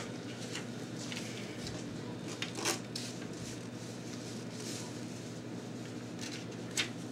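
A toddler's hands patting a refrigerator door and crinkling papers stuck to it: short rustles and taps, the sharpest about two and a half seconds in and again near the end, over a steady low hum.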